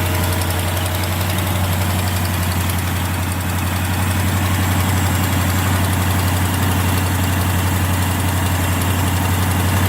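1987 Jeep Grand Wagoneer's AMC 360 V8 idling steadily and quietly, its new muffler in place of the old glass packs.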